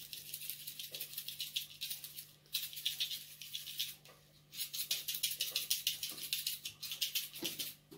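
A hand-held shaker of seasoning shaken quickly over sliced green peppers, its grains rattling in rapid, even strokes. The shaking comes in three runs, with brief pauses about two and a half and four seconds in.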